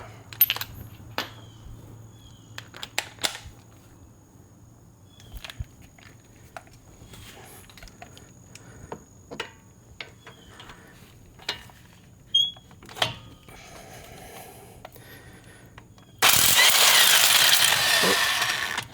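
Scattered metallic clicks and knocks of tools being handled on a brake caliper bracket, then about 16 seconds in a power tool runs loudly and steadily for about two and a half seconds on an 18 mm caliper bracket bolt.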